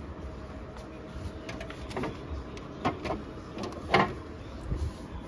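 Plastic knocks and clacks from a refrigerator's shelves and clear crisper drawer being handled: a few separate knocks, the loudest about four seconds in.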